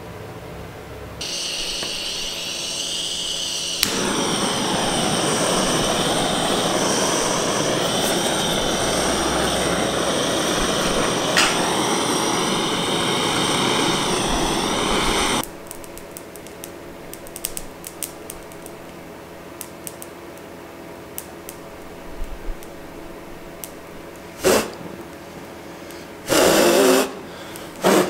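A gas torch burning a plastic wiring-harness connector. A high hiss starts about a second in, then a loud, steady flame noise joins it and runs until it cuts off suddenly a little past the middle. After that come faint scattered ticks, one sharp knock and a short loud burst of hiss near the end.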